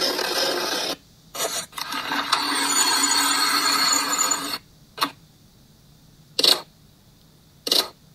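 Audio of an advertisement playing from a smartphone, a dense, noisy sound that pauses briefly about a second in and stops about four and a half seconds in. It is followed by three short, sharp clicks about a second and a half apart, the sound effects of an on-screen subscribe-button animation.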